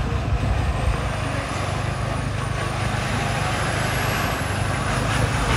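Semi truck's diesel engine running as the tractor-trailer draws near, the sound growing slowly louder toward the end.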